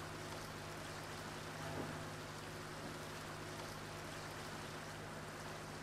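Sailboat under engine: a steady rushing hiss of water with a low, even engine hum underneath.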